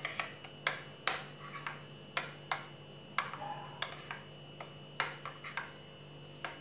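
Steel spoon clinking against a glass bowl while stirring thick semolina batter being thinned with a little water: a quick, uneven run of sharp clicks, about two or three a second.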